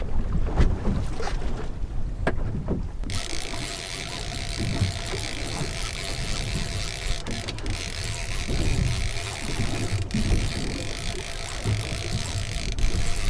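Wind on the microphone and water slapping against a small fishing boat's hull at sea, with a few light knocks early on and a steady hiss with a faint hum from about three seconds in.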